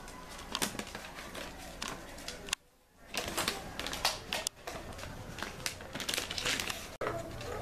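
A small dog rummaging through gift bags and treat packaging, making irregular crinkling, rustling and clicking of paper and plastic. The sound drops out briefly about two and a half seconds in.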